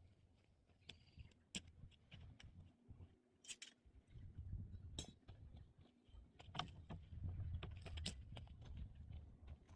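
Faint scattered clicks and taps with low rustling and bumping: a template and plywood sheet being handled while its outline is marked out. The handling grows a little louder in the second half.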